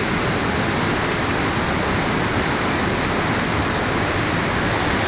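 Steady rush of fast-flowing river water pouring through a rock gorge.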